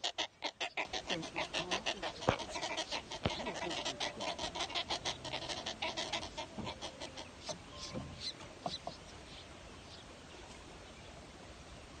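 Downy waterbird nestlings in a twig nest giving a rapid, chattering run of short begging calls, about seven a second. The run fades after about six seconds into a few scattered calls.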